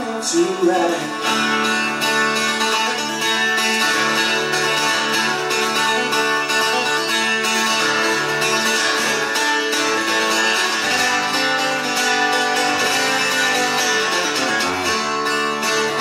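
A lone acoustic guitar playing an instrumental break with quick, steady picked notes, no voice over it.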